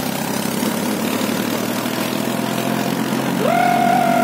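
HMT 3522 tractor's diesel engine running steadily at idle. About three and a half seconds in, a loud high whine rises quickly and then holds with a slight waver.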